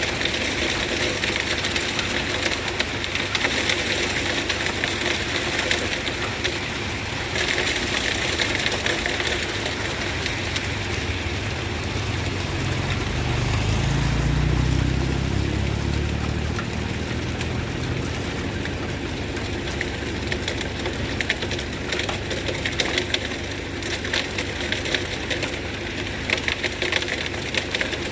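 A vehicle engine rumbles under steady outdoor noise, growing louder for a few seconds around the middle before falling back.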